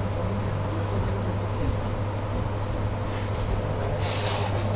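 Steady low hum of room noise, with the papery rustle of banknotes being counted by hand, loudest near the end.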